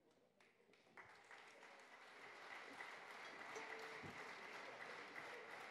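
Faint audience applause starting about a second in and slowly building, with a short held note sounding briefly near the middle.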